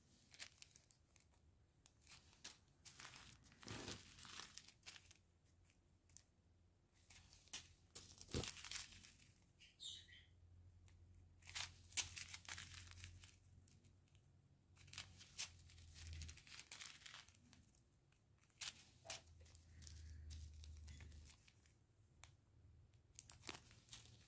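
Small plastic zip-lock bags of acrylic diamond-painting drills rustling and crinkling faintly as they are handled and set down, with scattered light clicks and taps.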